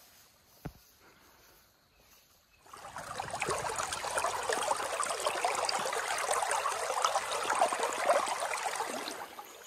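Near silence broken by a single click, then, about three seconds in, a shallow creek starts burbling and splashing right at the microphone, held just above the water's surface. It fades near the end.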